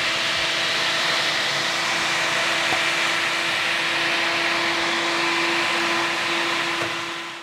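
Electric radiator cooling fans running at a steady speed: an even rush of air with a steady hum on top. The noise cuts off abruptly near the end.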